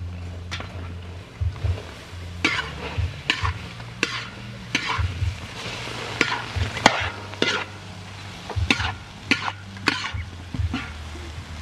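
Chopped tomatoes and fish pieces sizzling in oil in a large steel wok, with a metal ladle and spatula clinking and scraping against the pan again and again at irregular intervals. A low steady rumble runs underneath.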